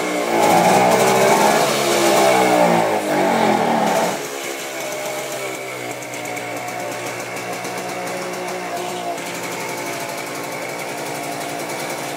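BSA Bantam's single-cylinder two-stroke engine running, revved up and down for the first four seconds or so, then settling to a steady, quieter idle.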